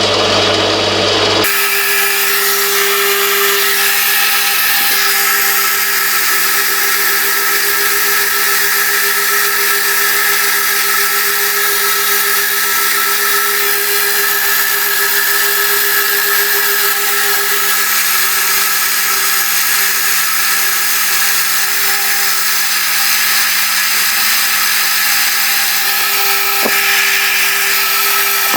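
Milling machine running steadily with a boring head cutting out a 35 mm hinge hole: a constant hum with a hiss of cutting, and a single click near the end.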